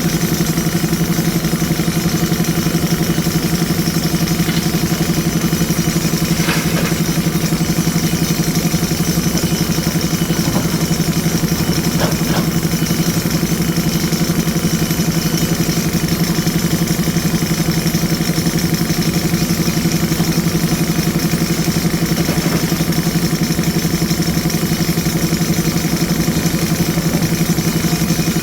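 Diesel engine of a JCB 3DX Super backhoe loader running steadily at an even speed, with a couple of faint knocks.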